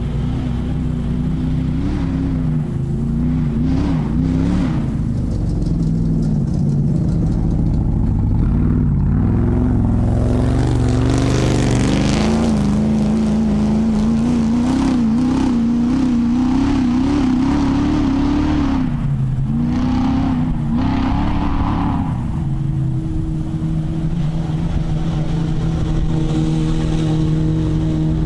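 Off-road racing buggy engine running hard, its pitch rising and falling again and again as it revs through the course, with a rushing noise twice around the middle and a steadier pitch near the end.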